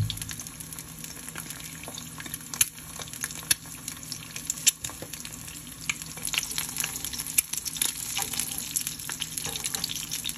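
An egg frying in oil in a nonstick skillet, sizzling steadily with many small pops and crackles as the white crisps and browns at the edges.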